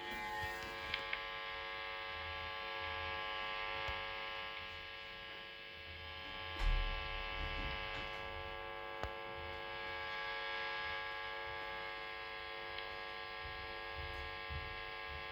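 Marshall DSL1HR valve amp head idling on its 1-watt setting with nobody playing: a steady mains hum and buzz made of many even tones over a hiss, the amp's noise floor. A low thump comes about six and a half seconds in.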